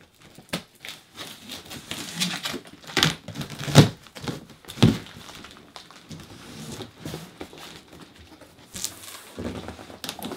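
Large cardboard shipping box being opened by hand: flaps pulled open and folded back, with irregular rustling and scraping of cardboard and a few sharp knocks, the loudest a few seconds in.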